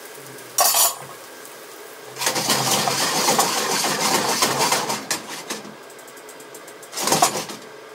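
Frying pan of simmering cream sauce being shaken and slid on the stove grate for about three seconds, with a metallic rattling scrape, and a shorter clatter of the pan once before and once near the end, over a steady low hum.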